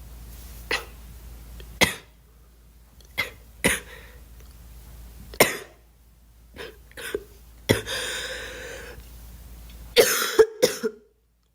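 A girl coughing in single coughs a second or two apart, with a drawn-out breathy sound about eight seconds in, then a quick run of three or four coughs near the end.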